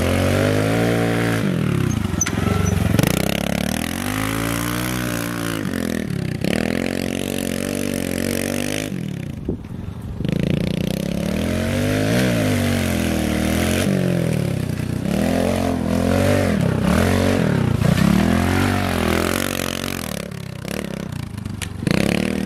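A pit bike's engine revving up and down again and again as the throttle is opened and shut while it is ridden around a dirt track, its pitch rising and falling every second or two, with a brief drop about ten seconds in.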